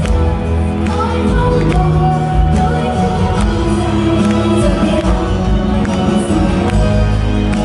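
Live pop music from a girls' idol group singing into handheld microphones over backing music with heavy bass.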